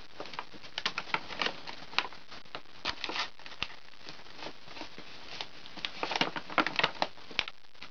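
Brown paper bag crinkling and crackling as kittens paw at and climb over it: irregular sharp crackles that come in flurries.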